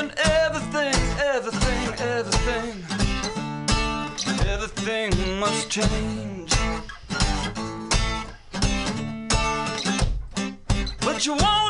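Strummed acoustic guitar with a man singing over it, his voice mainly in the first half and coming back near the end.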